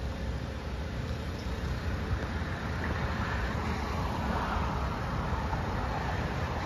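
Outdoor road traffic noise: a steady low rumble that grows louder for a few seconds in the middle.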